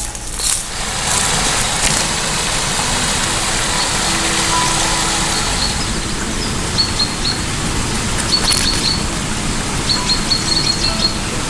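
Steady rushing noise of a car driving, with clusters of short high bird chirps from about seven seconds in.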